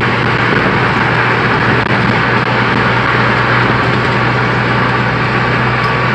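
Steady road and tyre noise heard from inside a car cruising at highway speed, with a low steady hum underneath.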